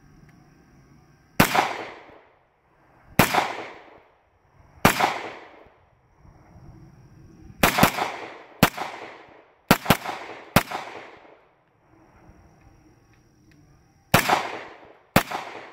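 CZ P10C 9mm pistol firing about eleven shots, each with a short echo trailing off. The first three are slow and evenly spaced, about a second and a half apart, then comes a quicker string of rapid fire, and after a pause two more shots near the end.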